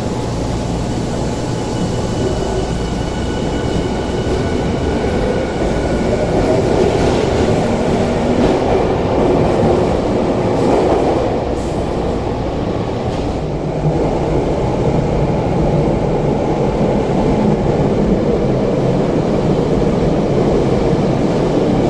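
Tokyu 5000- and 5050-series electric trains running at an underground platform: a steady mix of wheel and rail noise with the whine of their Hitachi IGBT VVVF inverter traction motors. About 14 s in, the sound changes to a second train running past.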